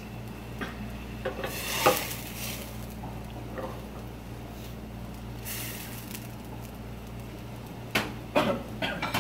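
Kitchen handling noises over a steady low hum: two short hissing rustles, then plates and pans clinking against the steel counter several times near the end.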